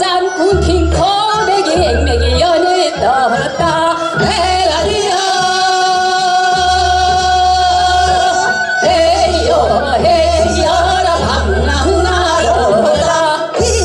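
Two women singing a Korean Seodo sori folk song into microphones, their voices wavering with vibrato and holding one long note in the middle, over an amplified backing track with a steady bass beat.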